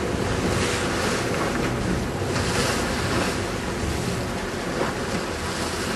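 Wind buffeting the microphone and sea water washing past a sportfishing boat's hull in rising and falling swells, over the low, steady rumble of the boat's engine.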